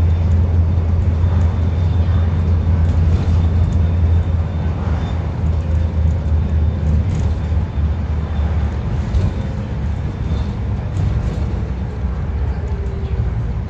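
A Scania N230UD double-decker bus's five-cylinder diesel engine, heard from a passenger seat inside, running steadily under load at road speed with road noise. After about eight seconds the low engine drone weakens and the whole sound eases a little.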